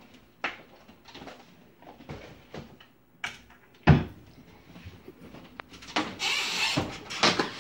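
Kitchen handling sounds: scattered knocks and one sharp thump about four seconds in, then a metal baking sheet scraped off an electric stovetop for about a second, with a clatter near the end.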